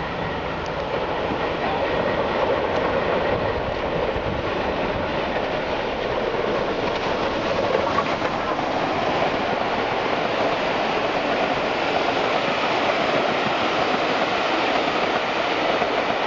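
Steam-hauled passenger train passing close by: Bulleid Battle of Britain class locomotive 34067 Tangmere goes by first, then its string of coaches, with a steady noise of wheels running on the rails that grows a little louder about two seconds in.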